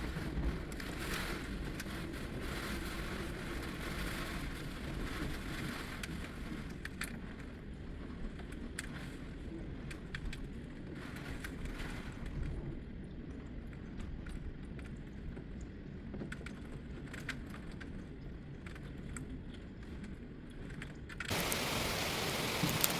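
Strong storm wind rumbling on the microphone, with scattered light taps. About 21 seconds in it changes suddenly to a louder, steady hiss of heavy rain.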